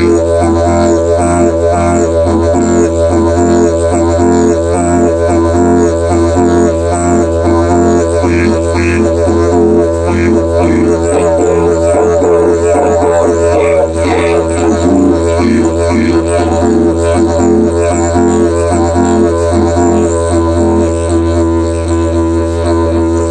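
Didgeridoo in the key of E played as one continuous low drone at a steady level, with the overtones above it shifting and warbling as the player reshapes the sound.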